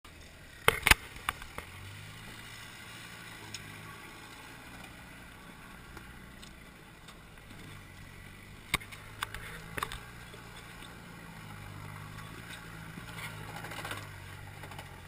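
A 4x4 off-roader's engine runs at low revs with a steady low drone as the vehicle crawls over rocks, picking up a little near the end. A few sharp knocks come about a second in and again about nine seconds in.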